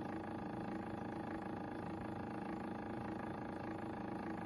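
OnStep-driven stepper motor turning a telescope mount's azimuth axis through a 50:1 worm gearbox. It runs with a steady whine of several held tones as the axis creeps slowly around.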